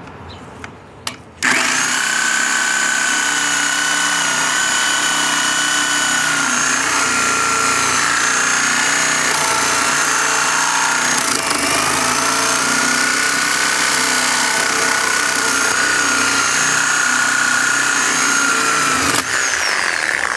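Reciprocating saw starting about a second and a half in and cutting through a car tire into its aluminum rim. It runs steadily with a high motor whine that dips briefly about halfway through, then stops about a second before the end.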